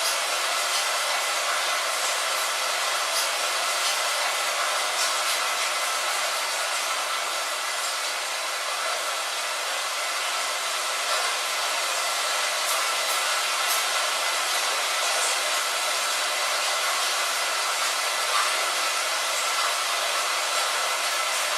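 Rain on a window: a steady, even hiss with faint scattered drop ticks and no deep rumble.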